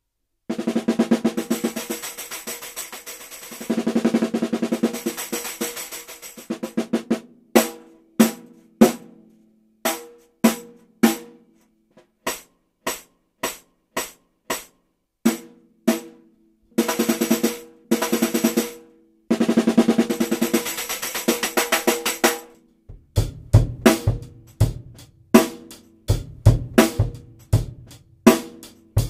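UFiP Snare Clang, a snare-style drumhead framed by a metal ring, played with sticks. It starts with sustained rolls with a bright metallic ring, then single strokes and more rolls. From about 23 s it joins a drum-kit groove with bass drum.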